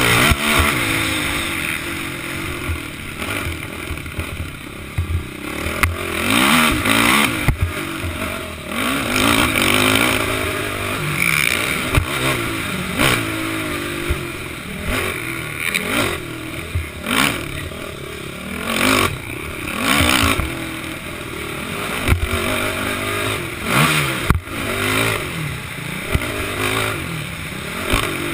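Racing quad's engine revving hard, its pitch rising and dropping again and again as the throttle is worked, heard through a helmet-mounted camera, with knocks and clatter from the bumps.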